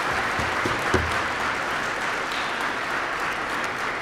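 Audience applauding steadily, with a couple of low knocks about a second in.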